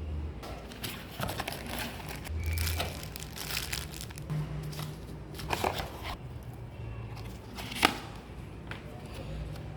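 Packaging being handled and opened: irregular crinkling and rustling with scattered clicks, and a single sharp loud click about eight seconds in.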